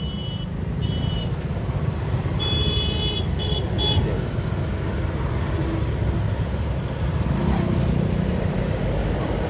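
Steady rumble of passing road traffic, with a high-pitched vehicle horn tooting briefly about a second in and then in several short toots between about two and a half and four seconds in.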